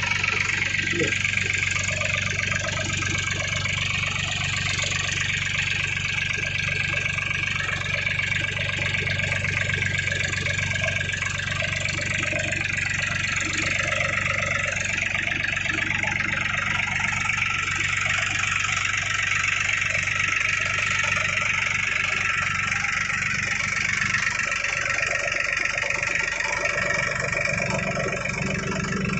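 Powertrac Euro 42 Plus tractor's diesel engine running steadily while pulling a potato planter.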